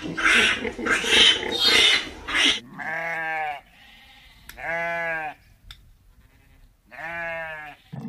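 Piglets squealing in short, rough bursts for the first couple of seconds, then a sheep bleating three times, each bleat under a second long.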